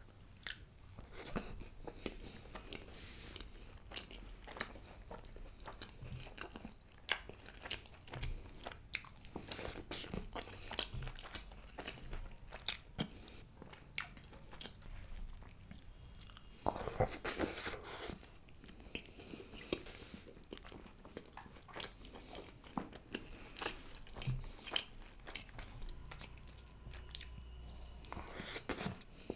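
Close-miked eating: a person chewing and biting through mutton curry with soft flatbreads (naan and laccha paratha), with many small wet mouth clicks. About seventeen seconds in comes a louder, noisier stretch of about a second.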